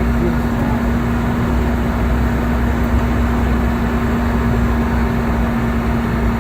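Steady cabin noise inside a Boeing 717: a constant rumble and rush of air with a steady low hum, which does not rise or fall.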